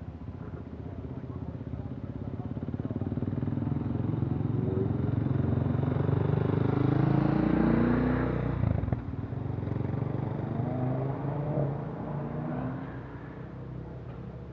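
A motorcycle passing by on the road. Its engine grows louder, the note rising as it accelerates, and is loudest about eight seconds in. It drops off sharply about nine seconds in as it goes past, then carries on more faintly as it pulls away.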